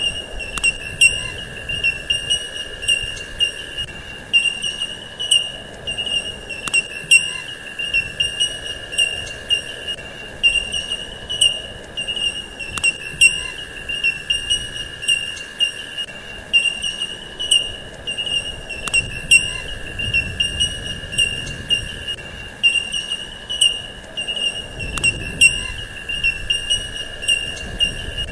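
Cricket-like insect chorus: a steady high trill pulsing a few times a second over a lower steady drone, with faint clicks. The pattern repeats about every six seconds.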